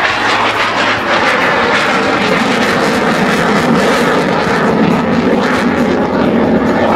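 Display aircraft's engine, loud and steady, as it flies a low approach and pulls up to roll.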